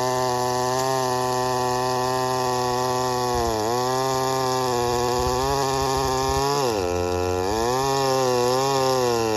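Stihl 009L two-stroke chainsaw, a 41 cc engine, running at high revs while boring into wood. Its pitch sags twice under the load, about three and a half seconds in and again around seven seconds, and climbs back each time.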